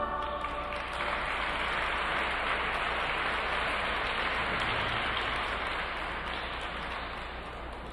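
Rink audience applauding at the end of a figure skating program. The clapping swells about a second in, just as the last notes of the program music die away, and thins out near the end.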